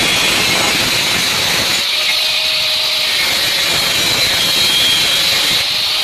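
Angle grinder with an abrasive cut-off disc cutting into a galvanized steel cable tray, a steady loud high grinding whine with a hiss, as V-notches are cut for a 90-degree bend. The sound thins, with less low rumble, about two seconds in.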